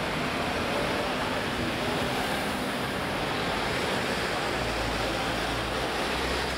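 Steady roar of street traffic, with a deeper low rumble coming in about four and a half seconds in for about two seconds.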